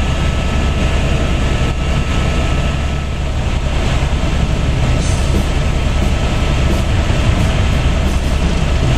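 Helicopter in flight, heard from inside the cabin: the steady, loud noise of its rotor and engine, with a few faint steady tones over a heavy low rumble.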